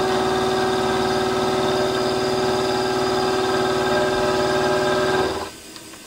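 Warco WM16B milling machine's spindle motor running with a steady whine while the end mill squares up the end of a metal bar. The sound stops suddenly about five and a half seconds in as the spindle is switched off.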